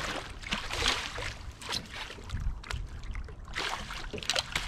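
A hooked channel catfish thrashing and splashing at the water's surface beside a boat as it is scooped into a landing net, in irregular bursts of splashing and sloshing water.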